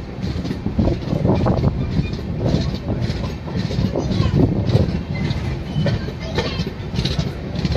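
Passenger train running, heard from an open coach door: a steady low rumble with many short knocks from the wheels over the track.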